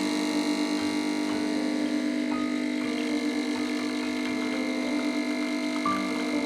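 Background music: a calm synth or electric-piano track with held notes and short higher notes.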